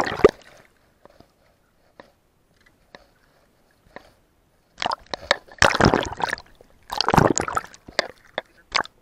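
Seawater sloshing and splashing around a waterproof action camera held at the surface as it dips in and out: one burst at the start, then a run of heavier, irregular sloshes from about five seconds in.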